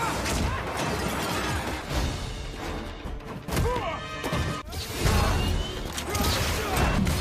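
Action-film fight soundtrack: orchestral score under a run of punches, kicks and crashing impacts, with a few swishes of movement.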